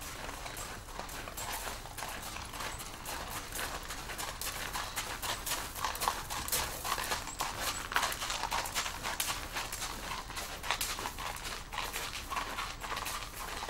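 Horse's hooves clopping on hard ground, an uneven run of knocks that grows denser about four seconds in.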